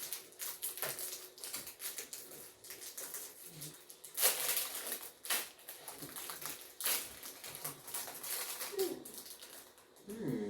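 Plastic snack-cake wrapper crinkling as it is handled and torn open: irregular crackles, loudest about four seconds in and again near seven seconds.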